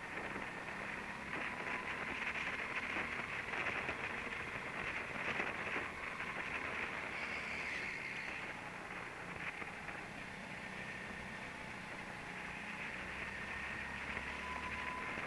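Go-kart running around an indoor track, heard on board: a steady, rough drone with a faint pitch that drifts up and down.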